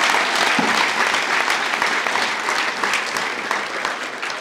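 Crowd applauding, the clapping gradually dying down toward the end.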